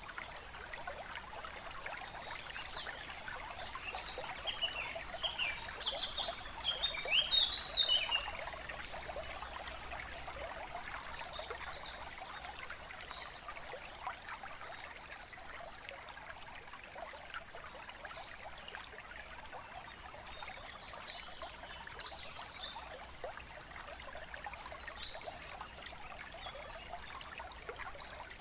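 Steady running water, like a trickling stream, with a few short bird chirps between about four and eight seconds in.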